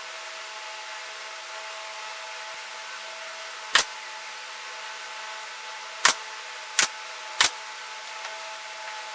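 Four sharp knocks, the first alone and the other three in quick succession, over a steady hiss with a faint hum.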